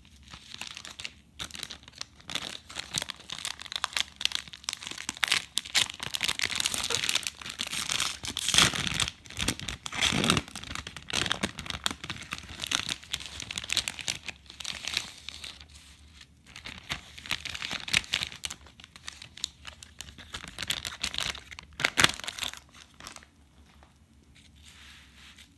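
Packaging of a Pokémon trading card pack being opened by hand: irregular crinkling, rustling and tearing, loudest about eight to ten seconds in, with a sharp crackle near twenty-two seconds, then dying away near the end.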